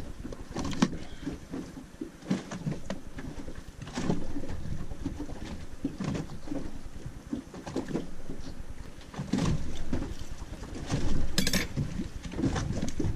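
Small waves lapping and slapping irregularly against the hull of a small boat at anchor, with a few light knocks and a short high rattle near the end.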